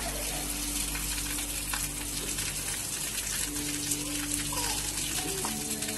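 Steady rush of splashing, gushing water.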